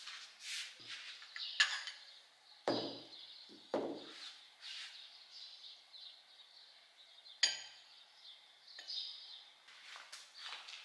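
Kittens mewing in short, high-pitched cries again and again, with a few sharp knocks among them.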